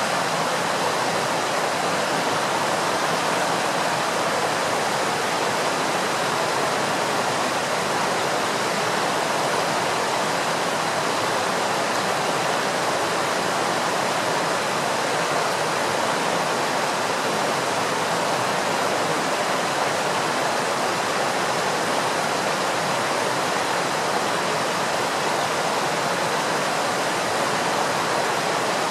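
Steady rush of flowing water, like a stream or small weir.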